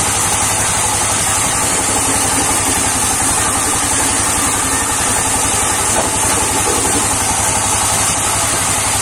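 Sawmill band saw running steadily as a log is pushed through it, the blade cutting slabs off the log: a constant mechanical drone with a high, unchanging hiss.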